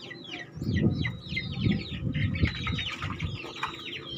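Many birds chirping all through, a fast, overlapping run of short, high, quickly falling notes. From about half a second in to past three seconds, louder low muffled bumps and rumbles come and go.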